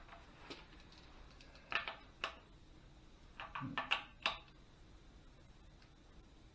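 A few short, scattered metallic clicks and knocks from a digital angle torque wrench and socket on the EJ251's cylinder head bolts as they are loosened 180 degrees, with a quick cluster of them a little before the four-second mark.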